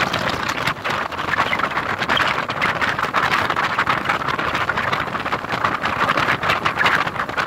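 Motorboat under way on a river: a steady rush of engine and water noise.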